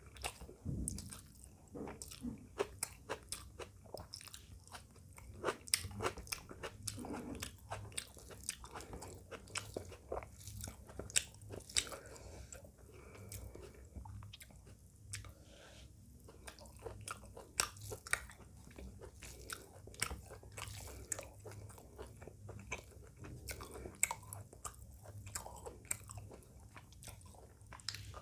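Close-miked ASMR chewing and biting through a meal of rice, chicken curry and raw onion-tomato salad, with frequent crisp crunches and sharp wet mouth clicks.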